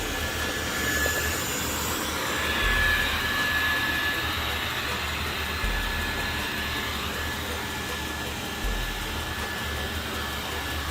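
Dreame L10 Pro robot vacuum running while mopping: a steady motor and suction noise with a thin high whine, and a low pulse about every three seconds.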